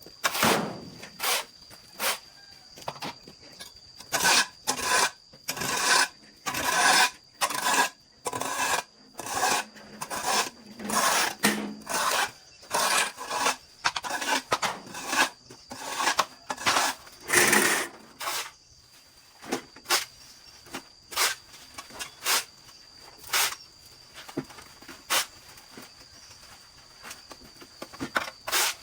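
Hand saw rasping through wood in irregular strokes, quick runs of them through the middle, then scattered single strokes. A steady high insect whine runs underneath.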